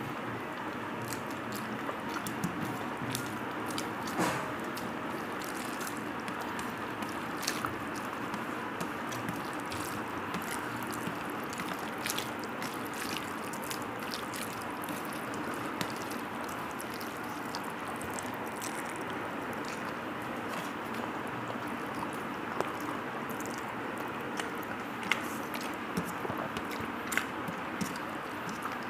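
A hand squishing and mixing rice with curry on a steel plate, with scattered sharp clicks of fingers and rings against the metal and some chewing, over a steady background hiss.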